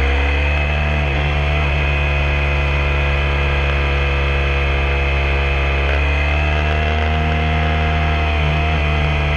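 Motorcycle engine running at a steady cruising speed, heard from on board, holding a nearly constant pitch with only slight rises and falls.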